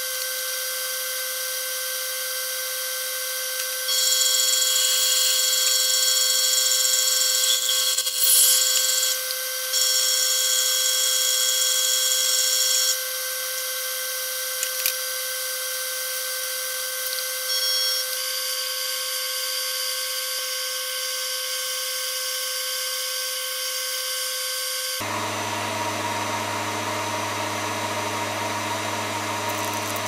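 Small benchtop metal lathe running with a steady motor whine, twice rising to a louder, higher-pitched noise for about three seconds. Near the end it gives way abruptly to a lower, steady hum.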